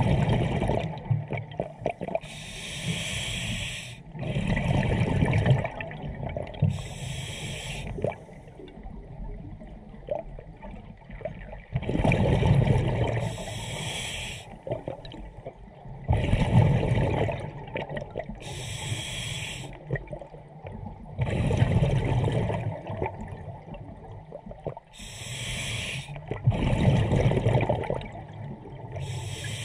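Scuba diver breathing through a demand regulator: hissing inhalations alternate with rumbling, bubbling exhalations, about six slow breaths.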